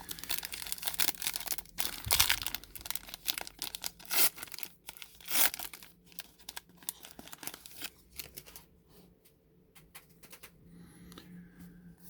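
A foil baseball card pack wrapper being torn open and crinkled in a run of crackly rips and rustles, with the loudest rips in the first half. Then softer rustling of cards being handled and sorted.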